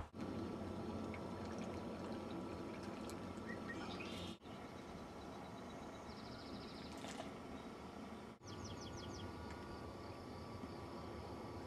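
Quiet outdoor nature ambience made of three spliced clips, with a steady faint hiss and small bird sounds: a rapid high trill about six seconds in, and a quick run of short high chirps about eight and a half seconds in. The background drops out for an instant twice where the clips join.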